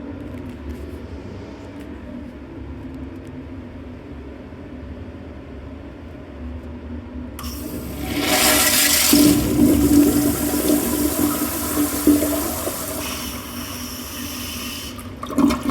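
A 1979 Crane San Walton toilet flushing. A low steady rumble runs first; about seven seconds in, the flush starts with a sudden rush of water, loudest for the next few seconds, then eases into a hissing refill. A short loud knock comes near the end.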